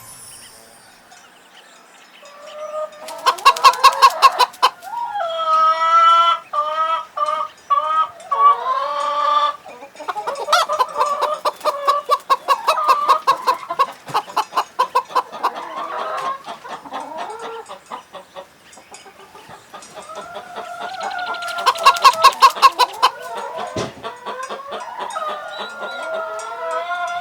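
Chickens clucking and cackling. There are fast runs of sharp clucks about three seconds in and again about twenty-one seconds in, with longer drawn-out calls between them.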